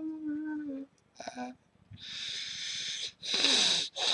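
A man's voice making mock-animal noises: a held hummed note that dips and stops, a short grunt, then two long, loud hissing breaths forced through the teeth.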